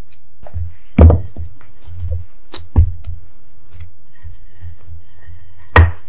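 Three dull knocks, about a second in, just under three seconds in and near the end, with faint rustling and light clicks between, as bread dough is handled and rolled out with a wooden rolling pin on a silicone baking mat.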